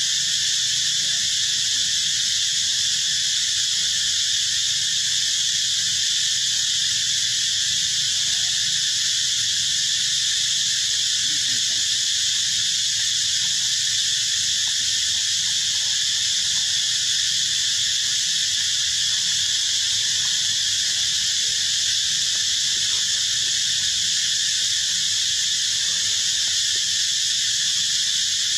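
A dense, unbroken, high-pitched chorus of insects, steady in level throughout.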